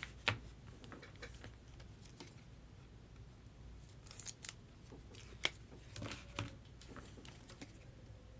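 Trading-card packs being opened and cards handled: a string of faint, short, sharp snips and clicks, louder about half a second in and again around five and a half seconds.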